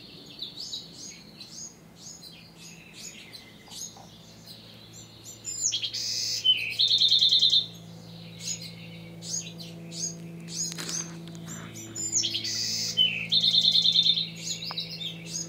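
Songbirds singing: one bird repeats a song phrase ending in a fast trill about every six to seven seconds, twice in these seconds, among other scattered chirps.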